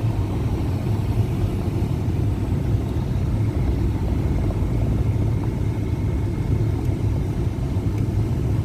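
A vehicle driving along, with a steady low engine and road rumble heard from on board.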